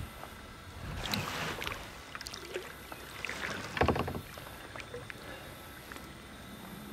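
Kayak paddle strokes in calm water: the blades dip and splash with dripping, in uneven surges, the loudest splash about four seconds in.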